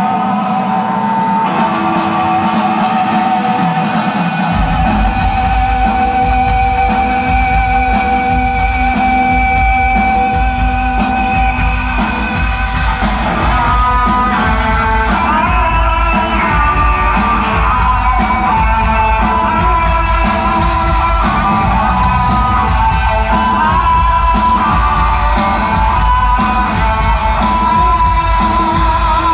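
A live rock band playing, recorded from the audience. Sustained notes from guitar or keyboard are joined by a heavy bass and drum low end about four and a half seconds in, with a male lead vocalist singing over it.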